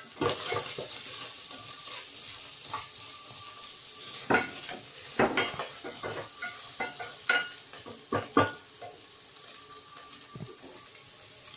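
Chicken, garlic, onion and carrot strips sizzling in oil in a metal pot as they are sautéed, while a wooden spoon stirs them and knocks sharply against the pot. The loudest knocks come a little after four seconds and about eight seconds in, and the stirring stops near the end, leaving the steady sizzle.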